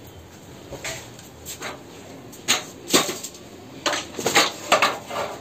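Irregular knocks and clatter of hard objects being handled, about eight sharp hits, the loudest in the middle and toward the end.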